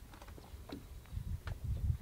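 Water slapping against a small boat's hull in irregular low thumps, louder near the end, with scattered light clicks.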